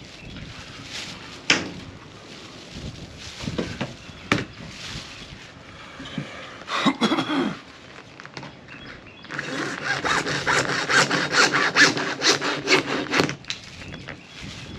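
Old hacksaw cutting through white PVC pipe in rapid back-and-forth strokes for about four seconds, starting a little past halfway in. Before the cut there are a few scattered knocks and clicks.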